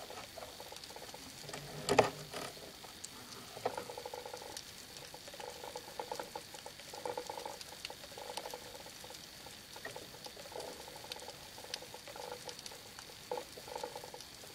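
Underwater crackle of a rocky sea floor heard through a camera housing: a steady scatter of small ticks and clicks with a low rushing that comes and goes, and one sharp knock about two seconds in.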